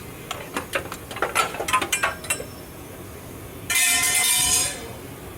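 A quick run of light metallic clinks and taps, then a steady mechanical whir with a hiss for about a second, cutting off sharply.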